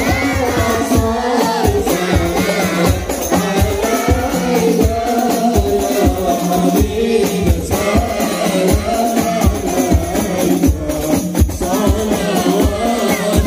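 A group singing Islamic devotional praise (shalawat) in unison during the standing mahallul qiyam, over a steady beat of hand-struck frame drums with a jingling, tambourine-like sound.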